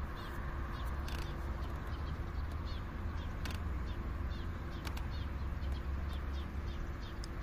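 A bird chirping in short, repeated falling notes over a low, steady rumble, with a few faint clicks.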